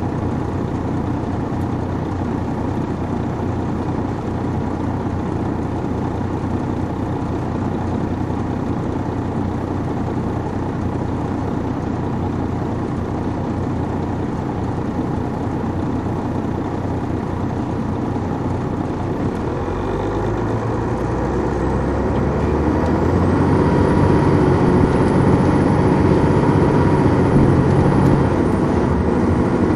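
Detroit Diesel Series 60 diesel engine of an MCI D4000 coach heard on board, running steadily. About twenty seconds in the engine grows louder and deeper as it works harder, and a thin high whine rises in over it and holds.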